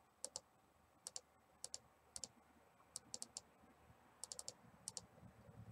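Faint clicks of a computer mouse and keyboard, coming in quick pairs and small runs every second or so.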